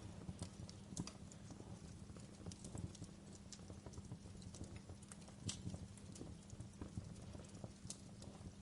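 Wood campfire crackling: irregular snaps and pops, a few louder than the rest, over a low steady rumble.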